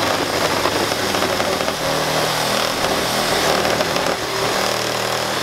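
A corded power tool running steadily against a car's front end, with a steady hum coming in about two seconds in.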